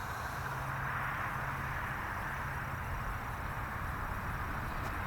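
An engine running steadily at an even speed, a low hum under a broad hiss.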